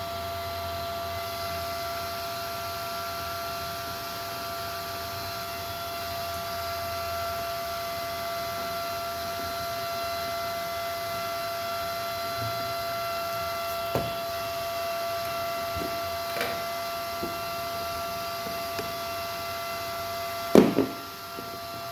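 Steady electrical hum made of several fixed tones, with a few faint clicks and a loud clatter near the end.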